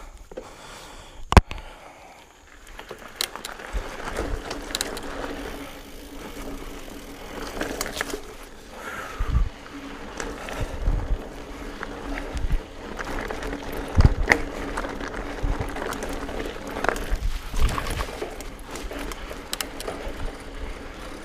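Mountain bike descending a dirt trail: tyres rolling over the ground with the chain and frame rattling and knocking over bumps, and a sharp click about a second in.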